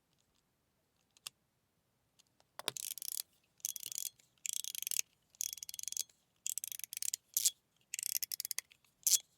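Mechanical fidget slider being slid back and forth: a single click, then from about two and a half seconds in a run of short scraping slide strokes about one a second, some ending in a sharp click. A fairly deep sound with little ping, its stock springs in place of ping springs.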